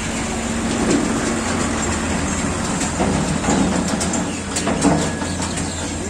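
Diesel engines of excavators and tractors running steadily, with a few knocks and clanks in the second half.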